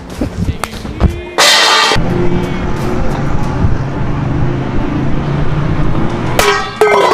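Background music with drums, with a short noisy crash about a second and a half in.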